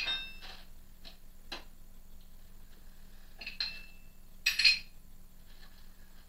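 Metal hand tools and hardware clinking against a metal lathe headstock while a bracket is being bolted on. A ringing clink comes at the start, another about 3.5 s in and the loudest about 4.5 s in, with a few light taps between, over a faint steady hum.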